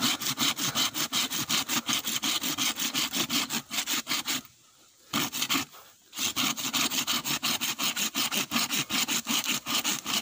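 Hand saw cutting through a bamboo stem in quick, even back-and-forth strokes, stopping for about a second midway and pausing once more briefly before carrying on.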